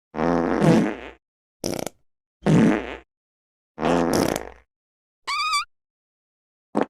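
A rapid run of short meme sound-effect clips separated by dead silence, mostly fake fart sounds, the longer ones buzzy with a low rumble, and one brief wavering whistle-like tone about five seconds in.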